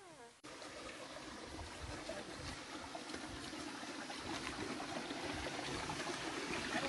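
Stream water running through a narrow rock gorge, a steady rushing that grows gradually louder.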